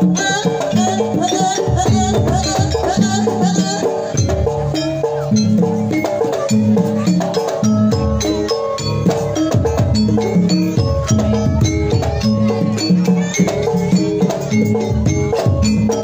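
Javanese gamelan music accompanying a jaranan trance dance: pitched metal percussion repeats short melodic figures over drums in a steady beat.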